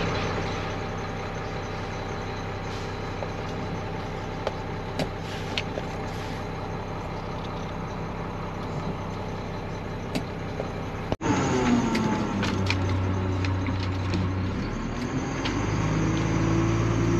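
Garbage truck engine idling steadily, heard from inside the cab. After a cut about two-thirds of the way through, it runs louder, its pitch rising and falling as the truck pulls forward.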